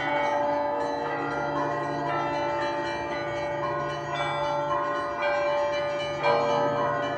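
Russian Orthodox cathedral bell ringing: several bells struck in a quick repeating pattern, their tones overlapping and ringing on, with a louder stroke near the end.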